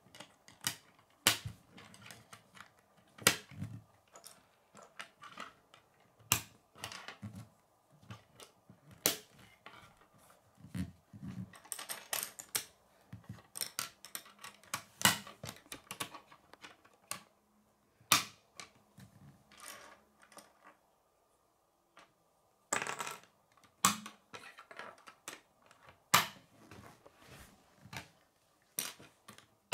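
K'nex plastic rods and connectors clicking as they are snapped together and set down on a wooden tabletop: irregular sharp clicks and taps, with a few duller knocks about eleven seconds in.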